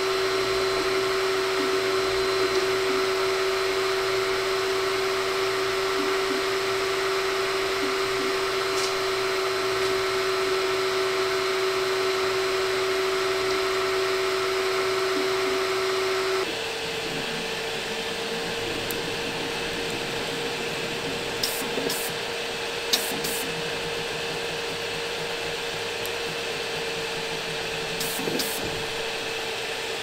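Creality Ender-2 Pro 3D printer printing PLA with its fans at full speed: a steady whir with a steady whine. About halfway through it changes to a FLSUN SR delta 3D printer printing, a little quieter and with a slightly higher whine, with a few brief ticks.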